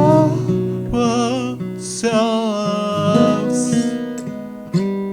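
A slow song: acoustic guitar chords with a voice singing long, wavering notes.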